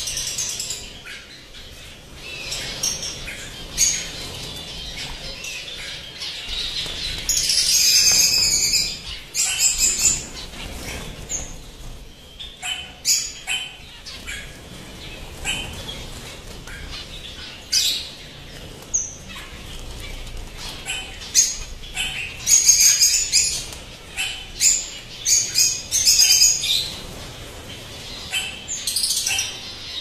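A roomful of caged finches and lovebirds chirping and calling at once, many short high calls overlapping, with wings fluttering now and then. The calling thickens into denser bursts about 8 seconds in and again around 23 seconds.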